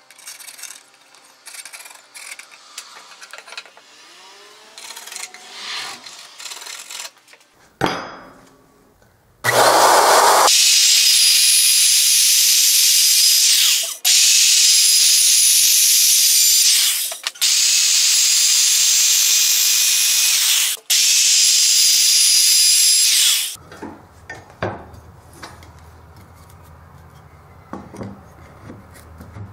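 Handheld electric wood router running at full speed and cutting into a pine board: a loud, high-pitched whine that stops and restarts briefly three times. Before it come softer scrapes and knocks of hands working the wood, and after it a low hum with a few knocks.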